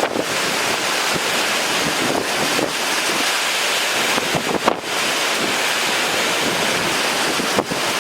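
Strong hurricane wind blowing steadily, buffeting the microphone, with a couple of brief gusts standing out partway through.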